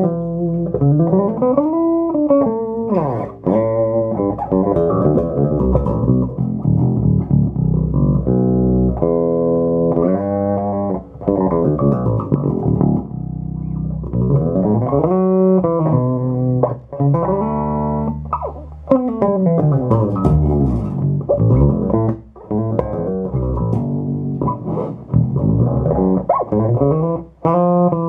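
Electric bass played through a Phil Jones Bass Briefcase combo amplifier: a continuous run of plucked notes, many sliding up and down in pitch, with a few brief gaps.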